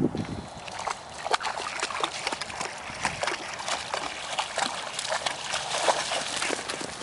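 A borzoi splashing through shallow pond water, wading and then leaping. The splashes come as many short, irregular slaps of water.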